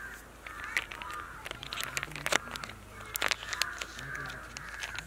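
Crows cawing repeatedly in the background, with a few sharp knocks or clinks in between.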